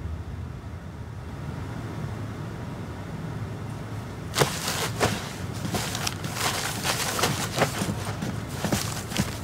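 A low room hum, then from about four seconds in a run of irregular light taps: footsteps in soft dance shoes on a wooden studio floor.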